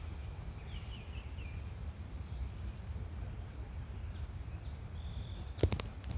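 Woodland ambience: a steady low rumble with a few short, faint songbird chirps scattered through it. A single sharp click about five and a half seconds in is the loudest sound.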